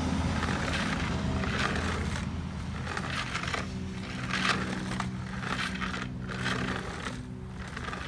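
The plastic brush head and wheels of an unplugged Hoover upright carpet cleaner scraping and rattling over a concrete sidewalk as it is pushed to and fro, in rough strokes about once a second, over a steady low hum.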